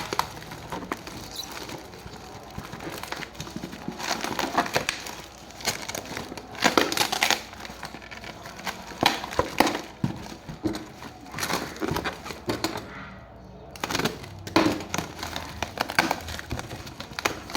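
Action-figure packaging being handled and opened, plastic and cardboard crinkling and rustling in short irregular bursts.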